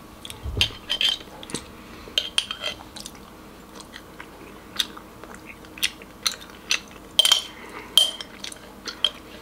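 Metal spoon clinking and scraping against a dish of overnight oats: a dozen or more irregular, sharp clinks, each with a short ring.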